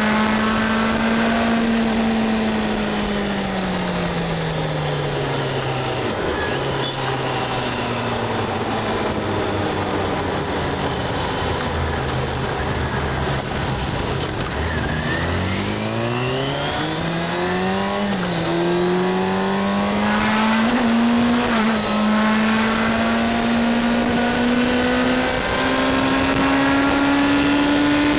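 Yamaha Fazer 600 (FZ6) inline-four engine heard from the rider's seat over a steady rush of wind. Its note falls as the bike slows over the first several seconds and stays low for a while, then rises under acceleration from about halfway, dips briefly at a gear change, and keeps climbing toward the end.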